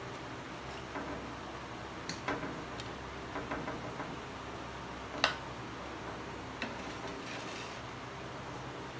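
Metal fork and spoon clinking and scraping against a plate while noodles are served: a scatter of light clicks, with one sharper clink a little past halfway, over a steady background hiss.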